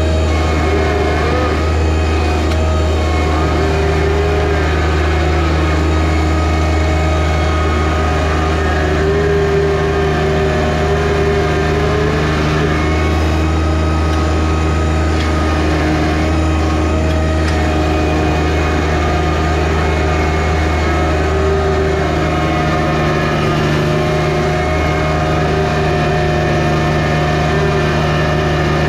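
John Deere 1025R compact tractor's three-cylinder diesel engine running steadily.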